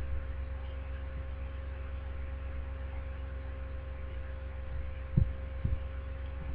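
Steady low electrical hum with a faint steady tone above it, and two soft low thumps about half a second apart, a little after five seconds in.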